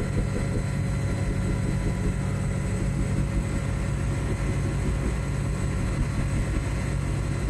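CH-77 Ranabot ultralight helicopter in flight, heard from inside the cabin: a steady drone of engine and two-bladed main rotor.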